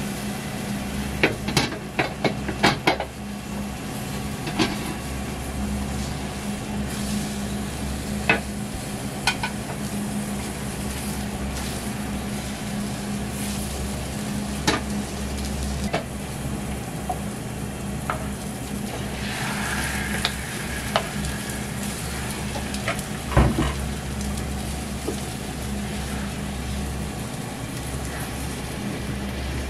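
Beaten egg sizzling in a rectangular tamagoyaki pan over a gas burner, with sharp clicks and knocks of chopsticks and the metal pan being worked on the stove, several in quick succession at the start and a loud one about two-thirds of the way through. A steady low hum runs underneath.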